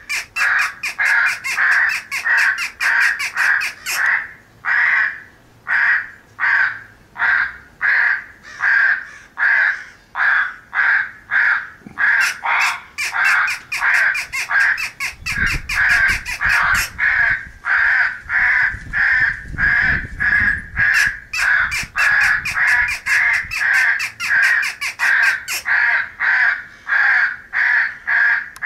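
Crows cawing over and over in a recorded corvid morning and feeding call, the caws coming in quick runs of several a second with brief pauses between runs. A low rumble sits under the calls for a few seconds midway.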